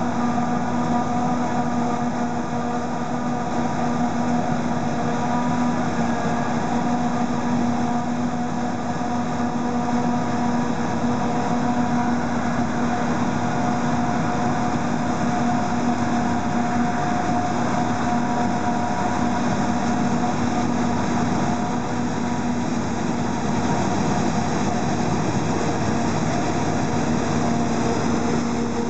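Claas Jaguar 850 self-propelled forage harvester chopping silage maize, its engine, cutter drum and blower running at full working speed, together with a Fendt 820 Vario tractor pulling the trailer alongside. The sound is a steady, even-pitched machine hum that does not change.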